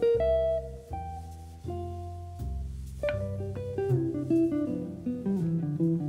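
Background music of plucked guitar with a bass line, notes changing steadily.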